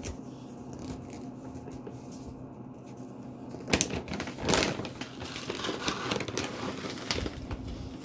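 Rustling and crackling of a bag of dry dog food being handled, with a couple of sharp clacks about four seconds in. A faint steady low hum runs underneath.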